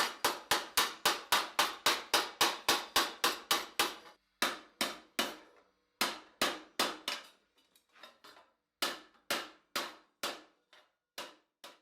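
Hand hammer striking steel armour plate, shaping a gauntlet cuff: a quick even run of about four blows a second, then slower, spaced blows with short pauses, each blow ringing briefly.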